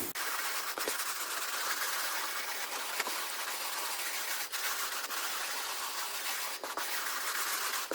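Hand brush scrubbing sand into carpet pile, a steady scratchy hiss with a few small clicks.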